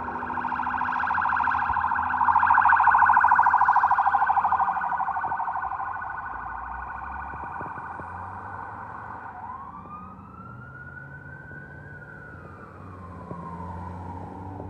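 Fire apparatus sirens on an emergency response. A fast-warbling electronic siren, loudest a few seconds in, fades by about six seconds. About nine seconds in, a siren winds slowly up in pitch and back down in a long wail, then starts to rise again near the end.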